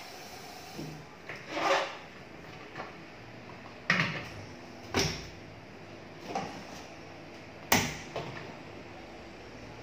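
Household items handled and set down at a kitchen sink: a string of separate sharp knocks and clacks, roughly one a second, the loudest about three-quarters of the way through.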